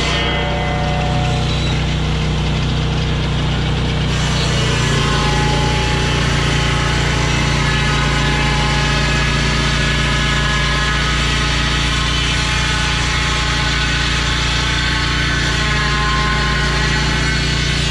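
An engine running at a steady speed, with a slight change in its tone about four seconds in.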